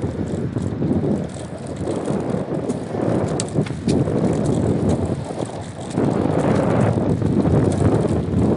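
Pedal trike rolling along a trail, tyre and drivetrain noise mixed with wind on the microphone. The noise swells and dips, growing louder for the last couple of seconds, with a few faint clicks.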